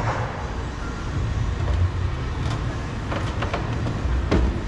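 Steady low rumble with several sharp clicks and snaps of plastic trim clips being pried out of the door trim panel with a clip puller.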